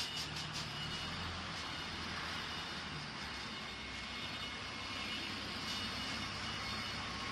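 Shangchai 12V135 V12 diesel engine of a 540 kW generator set running at steady speed: an even drone with a low hum and a rushing hiss over it.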